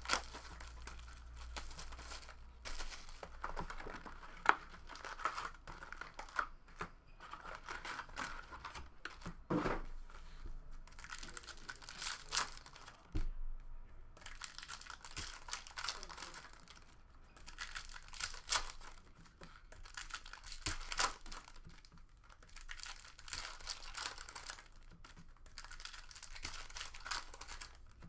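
Trading card pack wrappers being torn open and crinkled, with cards shuffled and handled: an uneven run of crackling and rustling with sharp snaps here and there.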